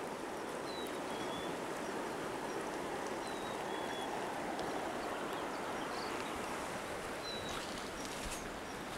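Steady rush of a river running over a stony bed, with a few faint, short high bird chirps now and then.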